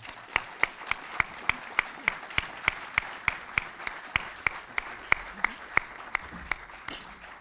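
Audience applauding, with one person's hands clapping close to a microphone in a steady beat of about three to four claps a second over the general applause. The applause dies away near the end.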